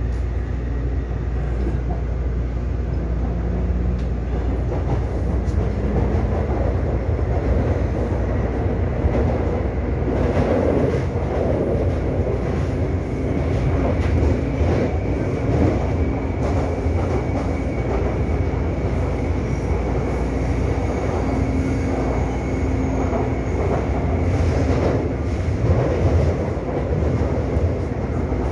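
A Taipei Metro C301 train running, heard from inside the car: steady wheel and rail noise with the low hum and faint steady tones of its IGBT-VVVF traction equipment and motors. A faint high tone joins near the middle.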